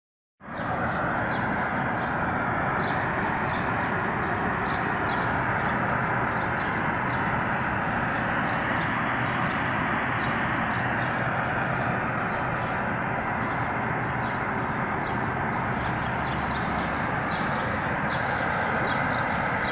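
An unidentified, steady, loud rushing noise with a faint hum under it, and short high ticks scattered irregularly through it.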